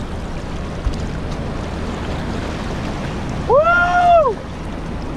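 Wind buffeting the microphone over shallow sea water washing and sloshing around shoreline rocks. A short cry that rises and falls in pitch cuts in about three and a half seconds in.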